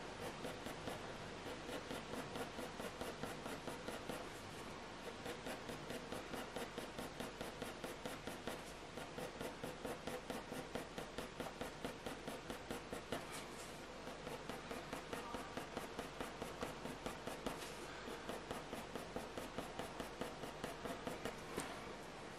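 Graphite pencil shading on hot-press watercolour paper: quick, short back-and-forth scratching strokes, about four or five a second, with a few brief pauses.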